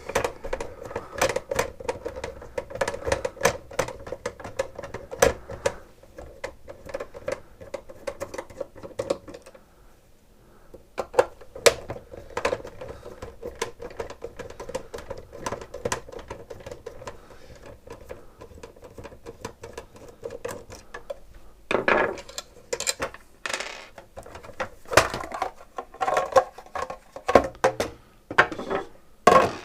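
Screws being taken out of a SodaStream's plastic housing: a steady hum for the first nine seconds or so under sharp clicks, then scattered clicks and louder rattles of plastic parts and screws being handled near the end.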